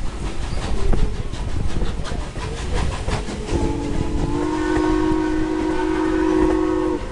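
Steam whistle of Strasburg Rail Road No. 89, a 2-6-0 steam locomotive, blowing one long steady blast from about halfway through. Under it runs the rumble and clatter of the passenger coach rolling on the rails.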